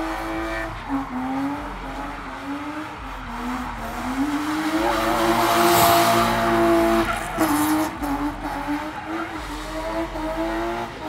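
BMW E36 drift car sliding: the engine runs at high revs, its note rising and falling as the throttle is worked, while the tyres squeal. The tyre noise and engine swell to their loudest near the middle, then ease off.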